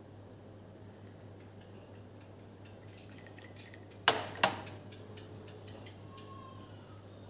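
Two sharp clinks of ceramic tableware, a third of a second apart, about halfway through, over a faint low steady hum.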